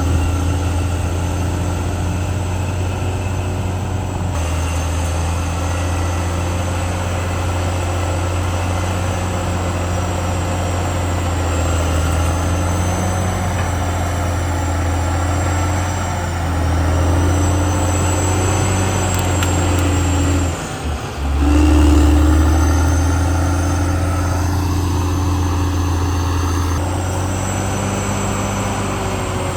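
CAT D6R XL bulldozer running under load: a heavy diesel drone with a thin high whine from the drive and steel tracks above it. The drone dips briefly a little past two-thirds through, then comes back louder.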